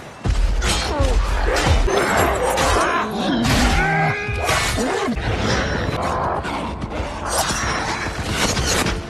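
Film battle sound effects: a dense run of crashing, shattering impacts mixed with music, with a sliding, wailing tone about four seconds in.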